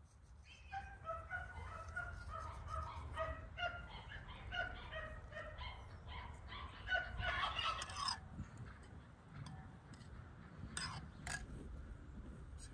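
Domestic fowl calling in the background: a rapid run of short, repeated pitched calls lasting several seconds and stopping about eight seconds in. Two light clicks come near the end.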